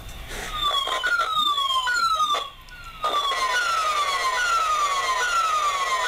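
Inductive tone probe (toner amplifier) held against a telephone punch-down block, sounding the tracing tone it picks up from the pair. The tone is a loud, repeating falling chirp, a little more than one a second, that drops out briefly about two and a half seconds in as the probe moves.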